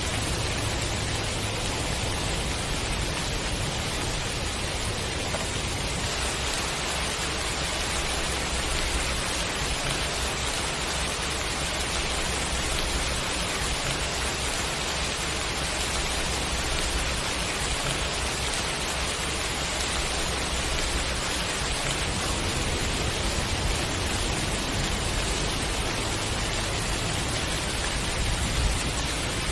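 Steady rain shower: an even hiss of falling rain that does not let up.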